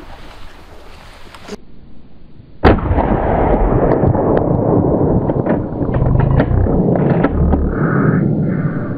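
A single gunshot about three seconds in, sharp and the loudest sound. It is followed by a loud, steady rushing noise with scattered clicks and knocks.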